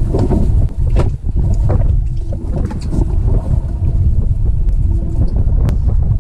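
Wind rumbling on the microphone aboard a small boat at sea, over a steady low hum, with a couple of sharp knocks.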